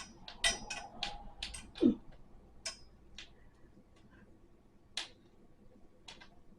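Sharp clicks and taps of small hardware and an Allen wrench being handled during flat-pack dresser assembly, quick at first and then a few scattered ones. A single duller knock comes just before two seconds in.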